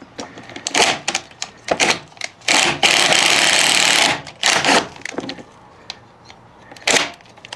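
Tool work on a motorcycle's subframe bolts as they are run in and tightened: short clicks and knocks of metal tools, with one run of rapid mechanical clatter lasting about a second and a half near the middle.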